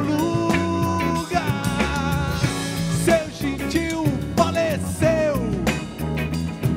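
Live soul-groove band playing an instrumental passage between sung verses: drum kit and electric bass keep a groove under lead notes that slide in pitch.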